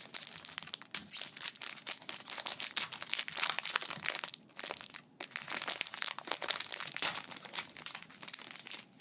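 Foil wrapper of a Pokémon TCG booster pack crinkling as hands work it and tear it open, with a couple of brief pauses; the crinkling stops just before the end.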